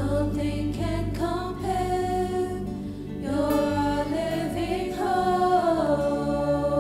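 Live contemporary worship music: several voices singing together in harmony with long held notes, accompanied by acoustic guitar.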